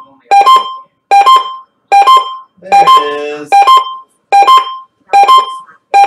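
Emergency Alert System required weekly test alert beeping through a radio: a loud, sharp electronic two-note beep, low then higher, repeated evenly eight times, a little over once a second.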